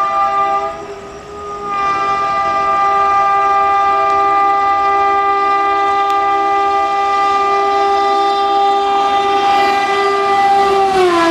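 WAP-4 electric locomotive's horn blowing as the train approaches at speed: a blast, a short break about a second in, then one long continuous blast. Near the end, as the locomotive passes, the horn's pitch drops and the rush of the train grows.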